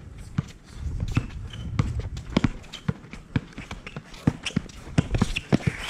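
Players' running footsteps and basketball bounces on a court during play: a quick, irregular string of sharp thuds and slaps over a low rumble.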